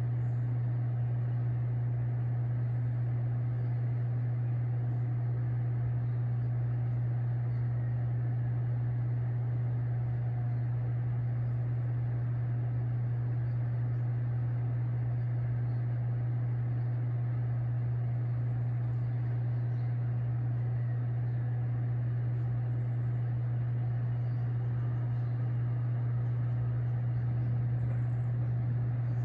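A steady low hum that holds constant throughout, over faint background noise.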